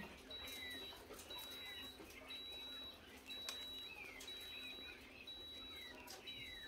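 A parrot's soft, short falling chirps, with a few sharp clicks, over a faint high electronic beep repeating about once a second.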